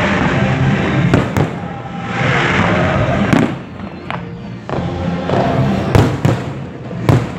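Aerial fireworks bursting in a display: about six sharp bangs, some in quick pairs, with a rushing hiss around two to three seconds in. Music plays underneath.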